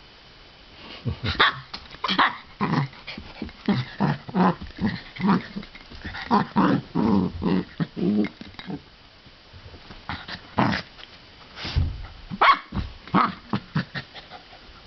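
Two poodles play-fighting, growling in a rapid series of short bursts, with a brief lull about two-thirds of the way through before the growling starts again.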